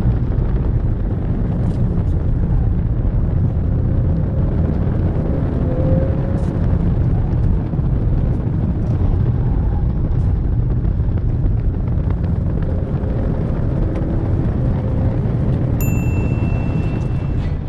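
Cabin noise of a 2021 Honda Accord with the 2.0-litre turbo four-cylinder driven hard on a wet track: a steady heavy rumble of engine, tyres and water on the road, with faint engine notes rising and falling. Near the end a steady high beep sounds for about two seconds.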